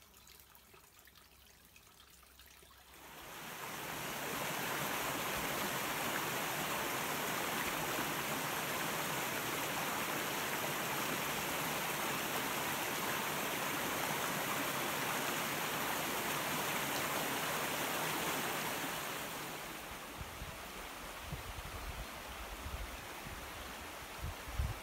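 Small woodland stream flowing: a steady rush of water that comes in about three seconds in and drops back a few seconds before the end. In the last few seconds, wind buffets the microphone.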